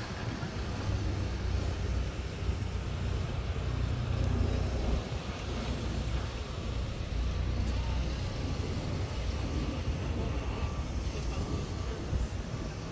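Boeing 717-2BD's two rear-mounted Rolls-Royce BR715 turbofans heard from the ground as the jet climbs after takeoff: a steady low rumble that swells slightly a few seconds in.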